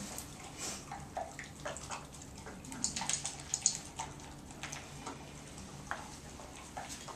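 A dog eating from a stainless steel bowl on the floor: irregular wet chewing and lapping, with scattered short clicks of food and teeth against the metal bowl.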